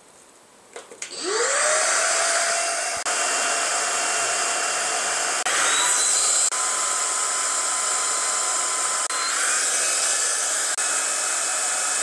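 Corvan K9 Pro cordless stick vacuum's motor switched on, spinning up with a rising whine to a steady whir. It steps up in pitch twice, about halfway through and again about three quarters through, as it is switched from normal to medium to high (turbo) power mode.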